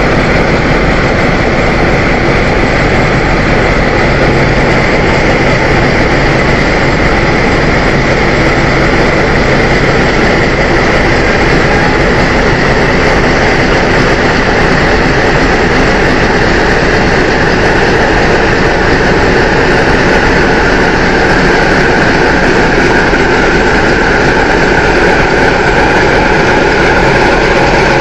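Heavy diesel locomotive engine running as a long freight train of coal wagons rolls slowly past on the station tracks. A steady low hum holds for the first ten seconds or so, and a higher note slowly sinks in pitch over the last several seconds.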